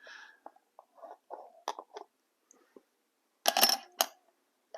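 Light metallic clicks and clinks of a Swiss K-31 rifle and gear being handled, then two louder sharp clacks about three and a half and four seconds in.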